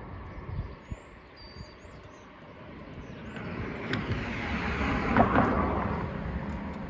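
A road vehicle passing close by: a noisy rush that swells from about three seconds in, peaks a little after five seconds and fades out. Birds chirp briefly in the first couple of seconds.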